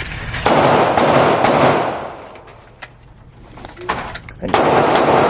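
Two rifle shots about four seconds apart, each a sudden loud blast that rings on for over a second before dying away, with a few fainter sharp cracks in between.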